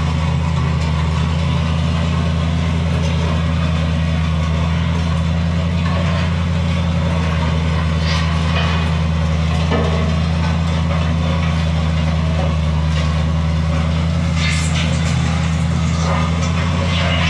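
Pickup truck engine running at a low, steady note while towing a steel land plane, with the scrape and crunch of gravel under the steel beams.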